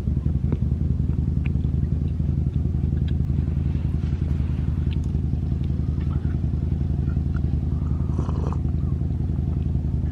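A steady low engine-like hum with a few faint scattered ticks.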